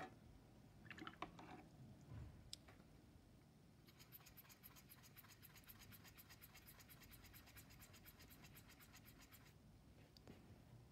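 Faint, fast back-and-forth scratching of a paintbrush scrubbing in a watercolour pan to load it with paint, lasting about five seconds from around four seconds in. Before it, a few light knocks as the paint tin is handled.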